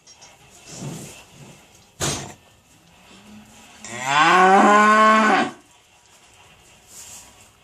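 A cow moos once, a long call lasting about a second and a half, starting a little under four seconds in. A single sharp knock comes about two seconds in.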